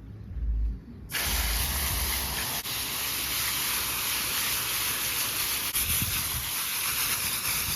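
Steady hiss of water spraying from a hose onto a K&N cotton air filter as it is rinsed during cleaning. The hiss starts abruptly about a second in and holds an even level.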